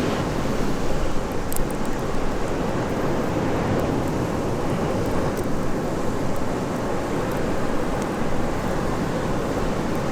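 Steady seaside noise of surf and wind buffeting the microphone, with a few faint sharp ticks on top.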